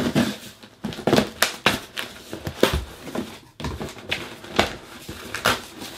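Packing tape on a cardboard box being slit open with a blade and the cardboard flaps pulled apart: a run of irregular sharp rips, scrapes and crackles of tape and cardboard.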